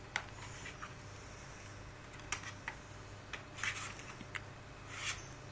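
Handling of a DVD case and its contents: a few sharp plastic clicks and brief rustles, over a low steady hum.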